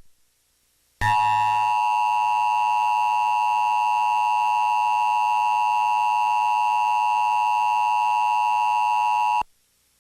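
Emergency Alert System attention signal: a steady two-tone alarm near 1 kHz that starts about a second in, holds unchanged for about eight seconds and cuts off abruptly. It announces a tornado watch.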